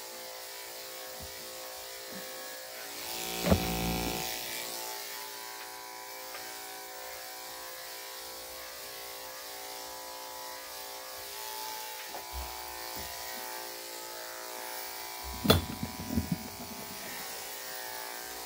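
Electric dog-grooming clippers running with a steady hum as they shave a puppy's coat. A sharp knock comes about three and a half seconds in, and another comes near the end.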